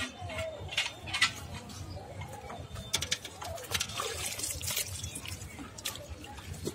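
Muddy water sloshing and splashing in a plastic bucket as a hand and a wooden stick are worked in it, with scattered clicks and knocks.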